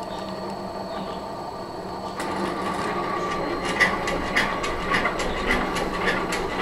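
Homebuilt pipe-gantry CNC's servo motors driving its axes through a program: a steady mechanical hum with a faint high whine, growing louder about two seconds in. Near the middle it takes on a regular clicking, a little under two clicks a second.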